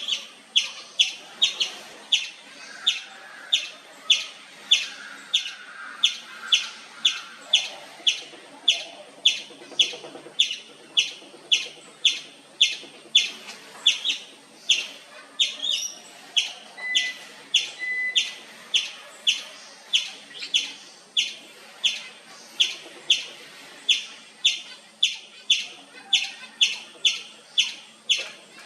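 Indian palm squirrel chirping nonstop: a steady series of sharp, high chirps, about two a second.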